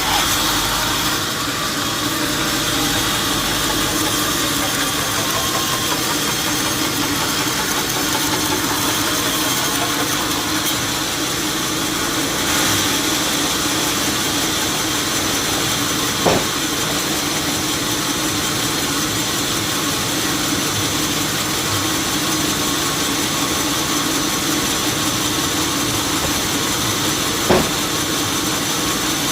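Sawmill machinery running with a steady mechanical hum and hiss. Two sharp knocks come through it, one a little past halfway and one near the end.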